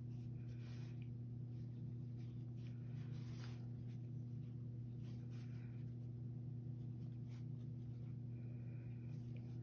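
Cloth rustling and brushing softly in short scattered bouts as fabric strips are handled and lined up, over a steady low hum.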